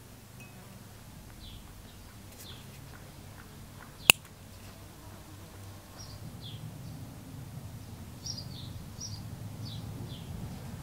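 Small birds chirping in short, scattered calls, with one sharp click about four seconds in and a low rumble swelling over the last few seconds.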